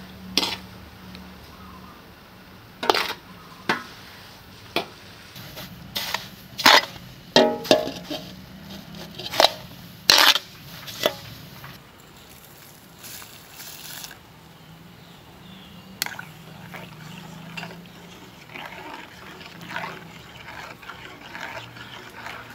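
Sharp knocks and scrapes of a cleaver blade against a metal basin as it turns dry rice grains, then after about twelve seconds a brief pour of rice into a pot of water, followed by softer stirring with a metal spoon against the pot and an occasional clink.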